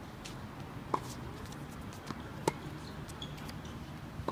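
Tennis rally: sharp pops of the ball on racket strings and court, three in all, about a second and a half apart.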